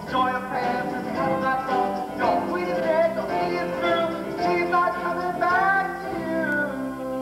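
Stage-musical cast singing with instrumental accompaniment, the pitches moving until they settle into a long held chord near the end.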